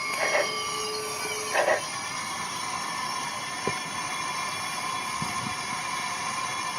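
Steam locomotive running with a steady hiss of steam. Two short chuffs come in the first two seconds, and a single click follows a little later.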